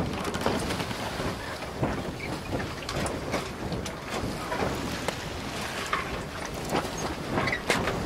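Wind gusting across the microphone, with scattered clicks, clanks and a few short squeaks from the moving metal kinetic sculpture's chain and joints.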